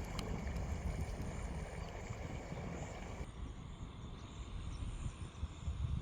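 Wind buffeting the microphone outdoors: a gusty low rumble over a faint hiss. About three seconds in the higher hiss drops away abruptly, leaving mostly the low rumble.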